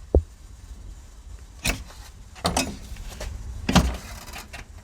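Four sharp clicks and knocks, the loudest a little before the end, from the clip and hinge of a semi truck's battery box cover being pulled out and lifted.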